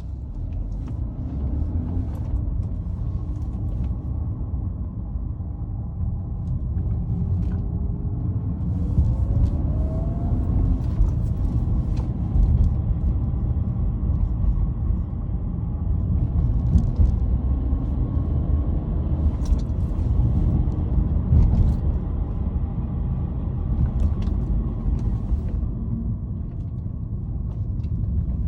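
BMW E90 318i under acceleration in gear: a steady low engine and road rumble, with an engine note rising around a third of the way in. Over it come scattered light metallic clicks and rattles, like metal balls clicking against each other. The owner fears a gearbox fault.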